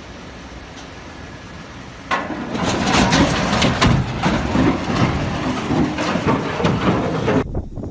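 Heavy machinery: a low steady rumble, then from about two seconds in a loud clattering, crunching din with many sharp knocks, which drops away near the end.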